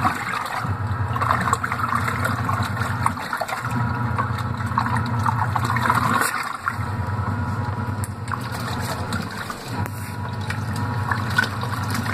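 The Laundry Alternative compact fully automatic washer agitating in its first rinse cycle. Its motor hums in stretches of about two and a half to three seconds, with a short break between each, over water sloshing in the tub.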